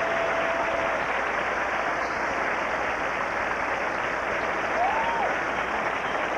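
Large stadium crowd applauding and cheering, a steady dense wash of clapping, with a short rising-and-falling whistle about five seconds in.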